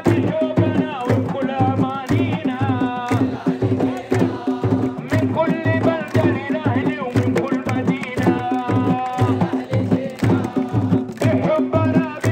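Football-style supporters' chant: a lead voice sings through a megaphone over a steady beat of large frame drums and hand-clapping.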